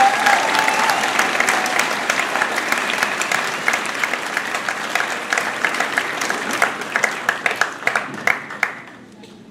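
Audience applauding, with one held whoop over the first two seconds; the clapping slowly dies down to a few scattered claps and stops near the end.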